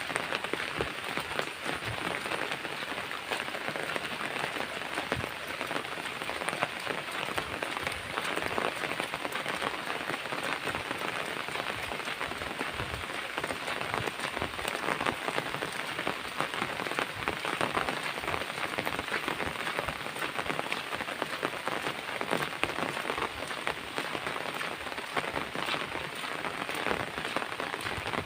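Steady rain falling on surfaces, an even wash of sound made up of many separate close drop hits.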